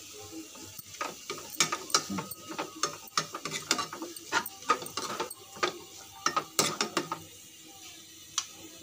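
A steel ladle scraping and clicking against a kadai while cooked greens and grated coconut are stirred together. It is a rapid, irregular run of clicks that stops about seven seconds in, with one more click near the end.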